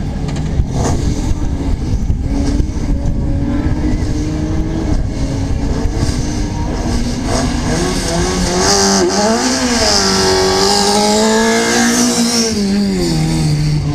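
Rally car engine at the start line, running steadily and then, from about halfway through, revved up and down several times, its pitch rising and falling before dropping near the end.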